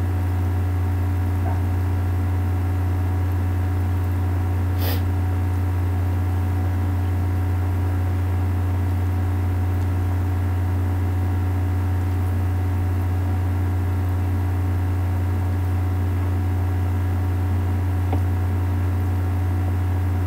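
A steady electrical hum, the loudest thing throughout, with several steady tones layered above it. A single click sounds about five seconds in.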